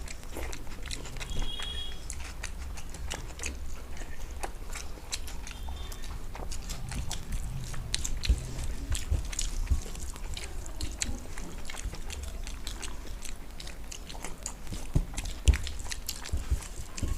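Two people chewing and eating a meal of rice and masala fish fry: many small wet clicks and smacks of mouths and food, over a low steady hum.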